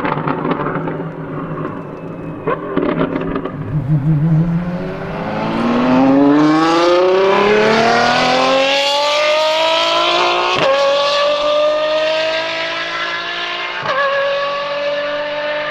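Apollo IE's straight-piped, naturally aspirated V12 at speed: crackles and pops in the first three seconds, then a long climb in pitch under full throttle, holding high near the end with two sharp cracks about ten and fourteen seconds in.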